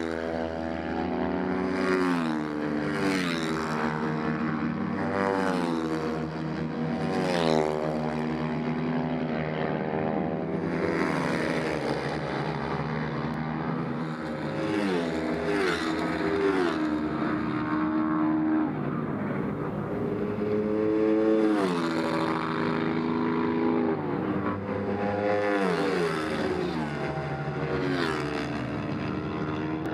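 Flat-track racing motorcycles at full throttle. Engine pitch climbs and then drops back at each gear change, again and again, as bikes come past one after another.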